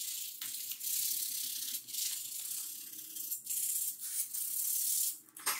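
Hand sanding: sandpaper rubbed back and forth over the joint between two polystyrene (HDPS) baseboard lengths. A run of short, hissy rasping strokes, each lasting under a second.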